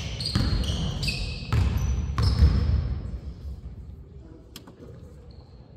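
A basketball bouncing on a hardwood gym floor, with sneakers squeaking in short high chirps, busy for the first two and a half seconds and then dying down to a few light taps.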